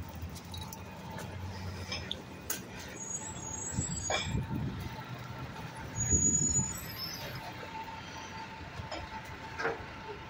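Rear-loader garbage truck running in city street traffic, its engine swelling loudest about six seconds in, with a few brief high squeals.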